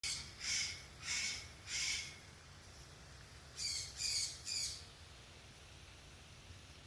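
Harsh bird squawks: three in quick succession, then after a short pause three more, then only faint background.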